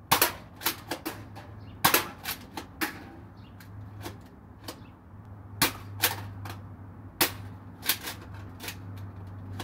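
Nerf Thermal Zenith foam dart blaster being fired in short strings: sharp clicks and knocks, irregularly spaced, over a low motor hum from its flywheels that spins up for a second or two at a time.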